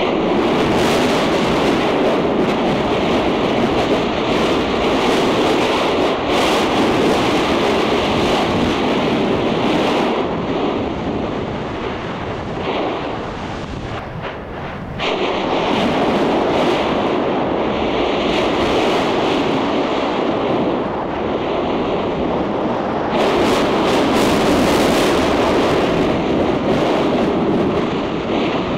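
Yasur volcano's crater vent erupting: a loud, continuous rushing roar of gas and lava spatter, easing off in the middle, then swelling back suddenly about halfway and again near the end.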